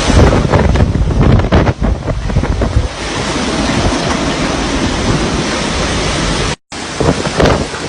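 Typhoon wind blowing hard and buffeting the microphone, gusty for the first few seconds and then steady. The sound cuts out briefly near the end and resumes as a new stretch of storm noise.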